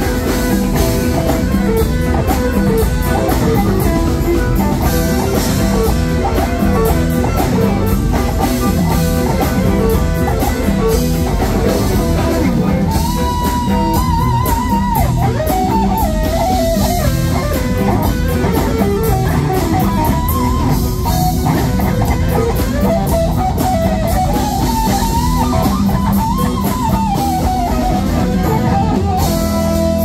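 Live rock band playing an instrumental passage: electric guitar over drum kit and bass. About halfway through, a lead melody of bending, wavering notes comes in above the band.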